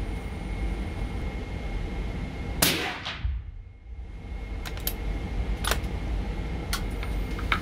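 Single suppressed .308 Win rifle shot from a bolt-action Mauser M18, a sharp report about two and a half seconds in. A few sharp clicks follow as the bolt is worked.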